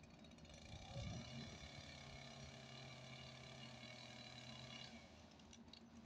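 Faint chainsaw in the tree: it revs up about a second in, runs steadily at high speed through a cut, and stops abruptly shortly before the end.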